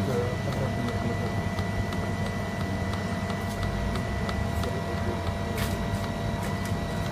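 Steady machinery hum with a thin high whine running over it, and a few light clicks from buttons being pressed on a control panel.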